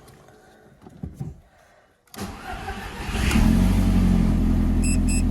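Audi S3 8L's 1.8-litre turbocharged four-cylinder, breathing through an open K&N conical air filter, cranks and starts about two seconds in and settles into a steady idle. Faint clicks come before the start, and a quick run of short electronic beeps sounds near the end.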